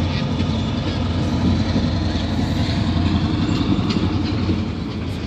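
A boat engine idling with a steady low rumble.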